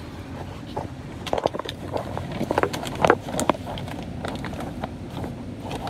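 Clicks and rustles of plastic-domed rotisserie-chicken containers handled with a gloved hand close to the phone, over a steady low store hum.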